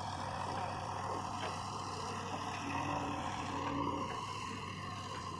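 Diesel engine of the backhoe loader or a tractor running steadily.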